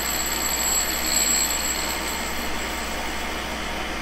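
A Cincinnati tool and cutter grinder's spindle spins a Norton SG flared cup wheel while a square dressing stick is held against the wheel to true it. The sound is a steady whir with thin high tones, mixed with a vacuum drawing off the dust.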